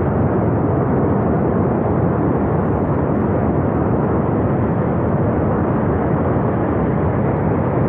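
Swollen floodwater of a mountain river rushing past, a loud, steady, unbroken noise.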